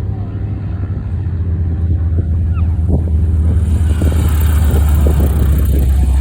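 Propeller-driven warbird's piston engine rumbling, growing steadily louder as it approaches, with a high hiss joining about halfway through.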